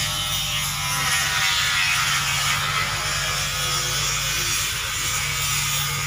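Steady machinery drone: a constant low hum under a strong, even hiss.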